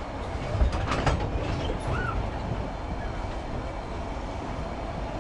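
Passenger coaches rolling past at close range: a steady rumble and clatter of steel wheels on the track. A few sharp clanks come about a second in.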